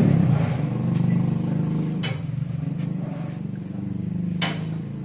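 An engine running steadily and slowly fading, with a short click or knock about two seconds in and another near the end.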